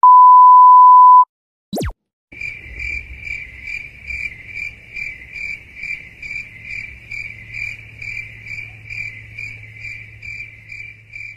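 A loud steady censor beep for about a second, a quick falling swish, then crickets chirping in an even pulse, about two to three chirps a second, to the end: the stock 'awkward silence' crickets sound effect.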